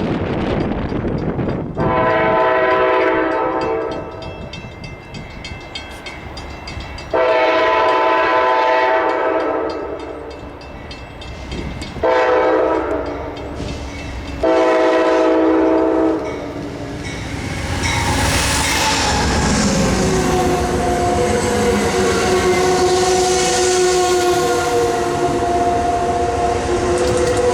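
Locomotive air horn sounding the grade-crossing pattern: two long blasts, a short one and a long one. A longer held blast follows as the train passes, its pitch dropping slightly, over the rumble of the engine and wheels on the rails.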